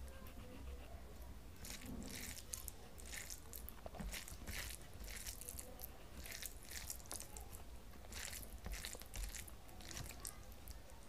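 Fingers mashing and mixing cooked rice into fish curry on a steel plate: many short, irregular soft wet clicks and squelches.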